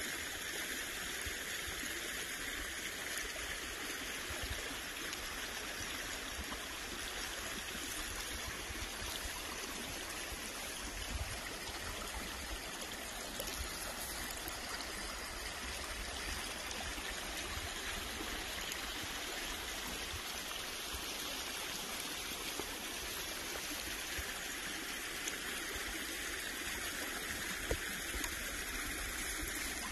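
Small shallow forest stream flowing over stones, a steady, even rush of running water.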